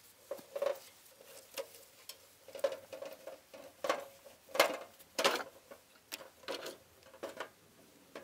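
Irregular light knocks and rattles, roughly one or two a second and loudest around the middle, from a wheelbarrow loaded with old wooden window frames being pushed over grass.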